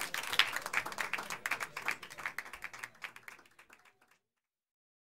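Live audience applauding, the clapping thinning out and fading away about four seconds in.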